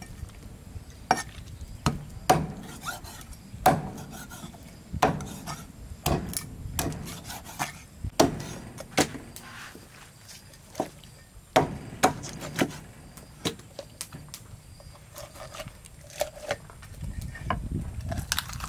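Cleaver chopping chicken on a thick wooden chopping block: irregular sharp knocks, roughly one a second, sparser later on, with the blade and meat scraping and rubbing on the wood between chops.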